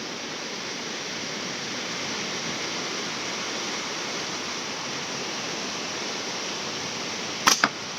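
Steady hiss, then one sharp snap about seven and a half seconds in: a slingshot shot of a steel ball, its TheraBand Gold bands released at full draw.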